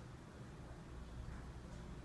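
Quiet room tone: a faint steady low hum with no distinct sound.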